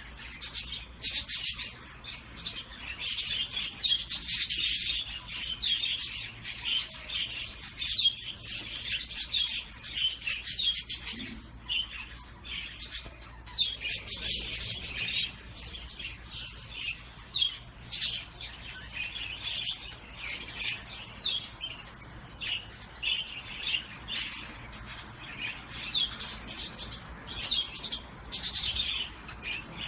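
Small cage birds chirping, a continuous stream of quick high-pitched calls overlapping one another.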